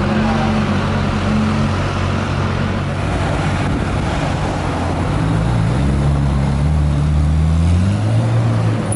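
Ferrari 458 Spider's V8 engine running at low revs as the car pulls away. About halfway through, its note rises steadily in pitch as it accelerates, then drops near the end.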